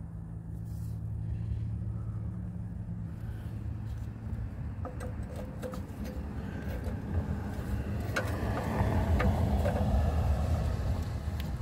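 Low rumble that grows louder in the second half, with a few light metallic clicks and taps as the new EGR valve is set down over its mounting studs.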